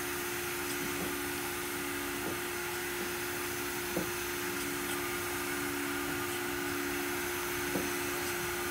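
Studer S40 CNC cylindrical grinder powered up and running, a steady hum with a hiss, with a few faint clicks.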